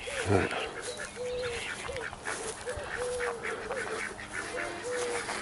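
Penned domestic ducks and chickens calling: a steady run of short, same-pitched calls, about two a second, with fainter clucking over them.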